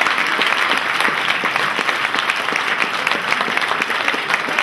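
Theatre audience applauding: many hands clapping at a steady level throughout.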